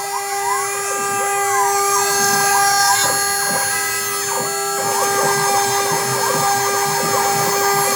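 Homemade CNC router machining: a steady spindle whine under stepper motors that whine up and down in pitch, about once or twice a second, as the axes speed up and slow down.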